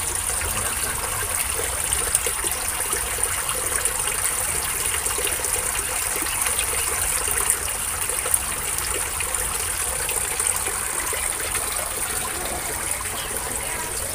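Water pouring steadily from a PVC pipe into a tarpaulin fish pond, splashing continuously on the water surface.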